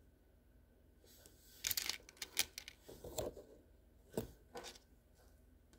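Packaging being handled and opened by hand: bursts of crinkling and tearing starting about a second and a half in, followed by scattered rustles and a few sharp clicks.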